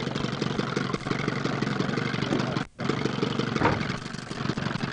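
Fishing boat's engine running steadily with an even low throb. The sound cuts out for an instant about halfway through.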